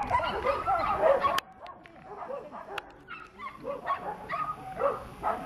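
A dog barking and yipping in quick succession, loud for the first second and a half, then quieter scattered yips and barks.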